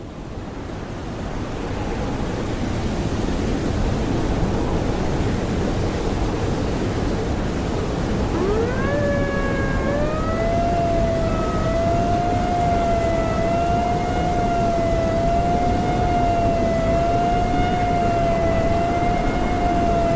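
Steady roar of blizzard wind fading in over the first couple of seconds. About eight seconds in, an outdoor civil defense warning siren winds up and then holds a steady, slightly wavering wail.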